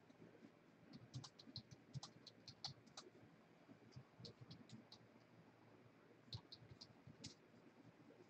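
Faint, irregular small clicks and light scratching in short clusters against near silence.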